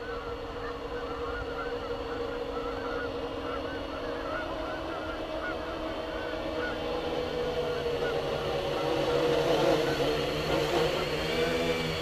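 Electric motors and propellers of an R/C quadcopter whining steadily as it flies in, growing louder. Near the end the pitch wavers up and down as the throttle changes for touchdown.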